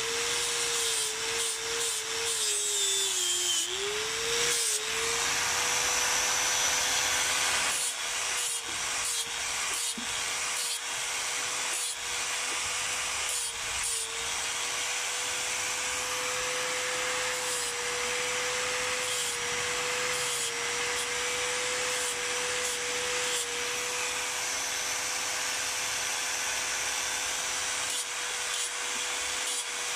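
Electric angle grinder running, its abrasive disc grinding and shaping water buffalo horn: a steady motor whine over a rough grinding hiss. The whine sags in pitch under load in the first few seconds, then holds steady with small dips as the horn is pressed against the disc.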